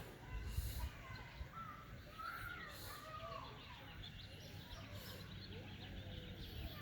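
Birds chirping and calling over a low outdoor background: many short chirps, with a few longer sliding calls between about two and three seconds in.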